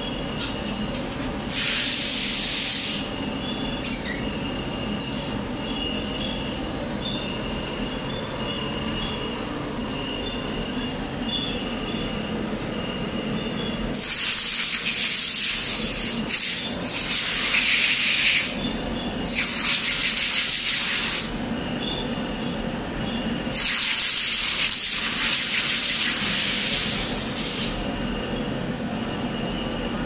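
Surface grinder running with a steady hum, its abrasive wheel grinding a metal mould part in several high-pitched hissing passes of a few seconds each, one near the start and a run of them in the second half.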